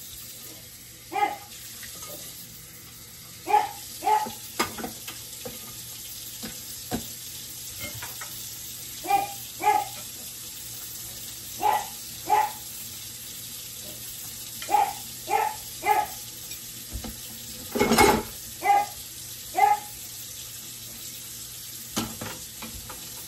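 A dog barking in short, sharp calls, often two to four in quick succession, every few seconds, over a steady background hiss.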